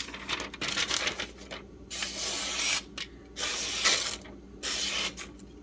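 A knife blade of D2 steel drawn in about five separate scraping strokes, each under a second long.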